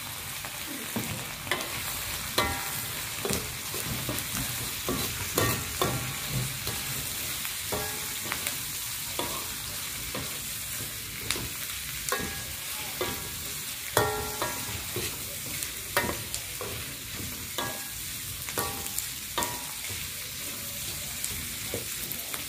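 Pork belly pieces sizzling in hot oil in a steel wok with onion, garlic, ginger and chilli, as a metal ladle stirs and scrapes through them, clanking and ringing against the wok at irregular intervals of a second or so.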